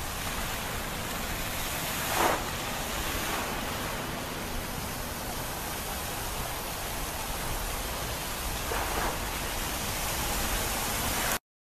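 Steady rushing road and wind noise from a moving vehicle, with two brief louder swells, about two seconds in and again near nine seconds; it cuts off suddenly just before the end.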